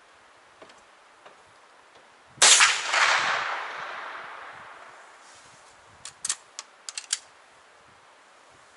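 A single gunshot, its report echoing and dying away over about three seconds. A few seconds later comes a quick run of about six sharp clicks.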